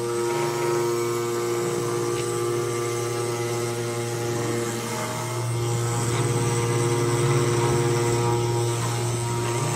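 CNC machine running: a steady motor hum made of several held tones, the low tone shifting slightly in pitch and level a few times.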